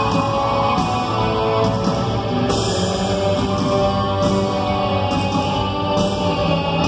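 Rock band playing with electric guitar and drums, a steady full-band passage with sustained chords.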